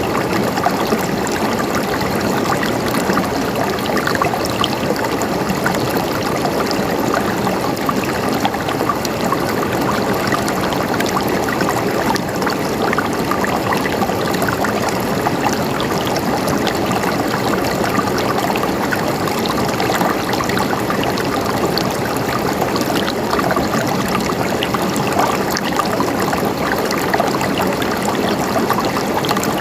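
Running water trickling and splashing over rocks in a small stream, a steady burbling flow.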